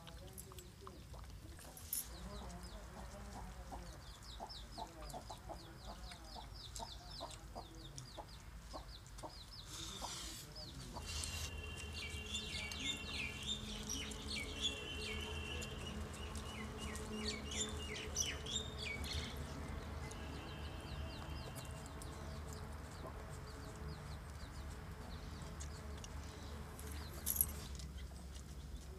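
Chickens clucking and calling, with other birds chirping, over a faint steady low hum that comes in about a third of the way through.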